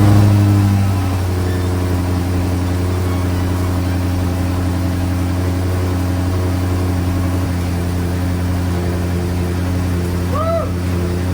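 2014 BMW M5 Competition's twin-turbo V8 running on its first start after the front-end rebuild. It runs at a raised idle for the first second, then drops and settles into a steady idle.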